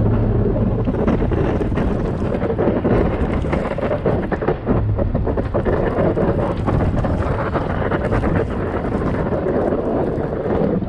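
Blizzard wind buffeting the microphone, with a vehicle engine running underneath as a steady low hum.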